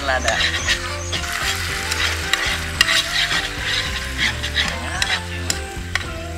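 Spatula stirring and scraping a saucy sausage dish in a frying pan, the sauce sizzling, with irregular clicks of the spatula against the pan.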